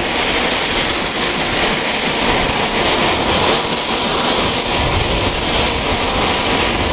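Chengdu J-20 fighter's jet engines running at idle on the ground before taxiing: a loud, steady rush with a high, steady whine over it.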